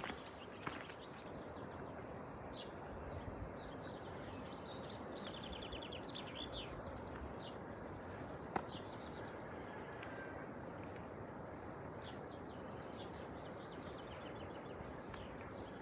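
Small birds chirping in quick repeated trills, mostly in the first half and again near the end, over a steady background hiss. One sharp click a little past the middle.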